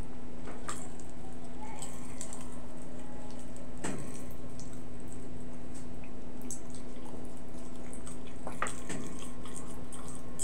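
Close-up eating sounds from a person eating with their hands: scattered wet mouth smacks and clicks of chewing, and fingers picking at fried tilapia, over a steady low hum.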